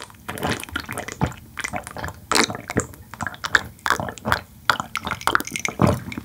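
Close-miked sipping and swallowing of tea from a glass mug: an irregular string of wet sips, gulps and mouth clicks.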